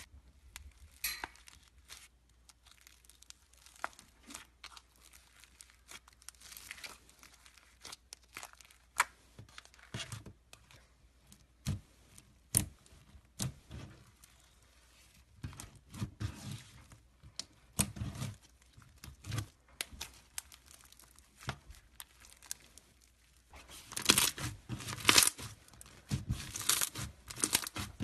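Slime being squeezed and pulled by hand, making sticky clicks and short crackling pops, scattered at first and becoming louder and denser near the end.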